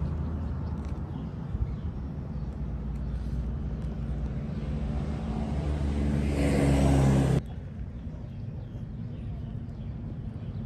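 A motor vehicle engine running, growing louder until it stops abruptly about seven seconds in, leaving a fainter steady low hum.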